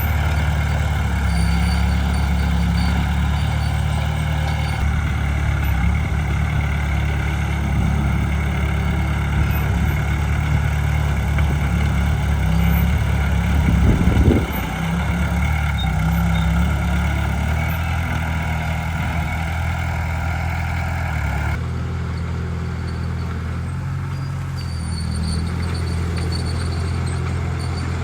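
Heavy diesel engine of earthmoving machinery running steadily with a deep rumble, with a short louder surge about halfway through.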